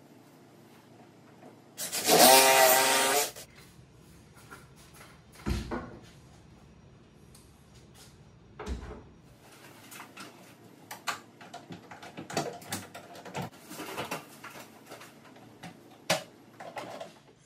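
A cordless drill/driver runs in one burst of about a second and a half, driving a cabinet screw into the wall. Then come a couple of dull knocks and a scatter of small clicks and taps from handling the cabinets and tools.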